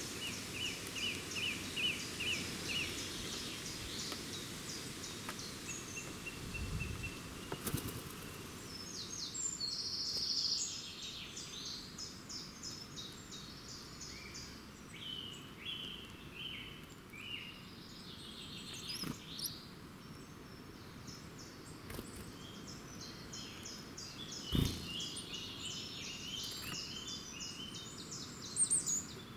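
Several small songbirds singing and calling together, in quick overlapping series of high chirps and trills. There are two short low thumps, about seven seconds in and near twenty-five seconds.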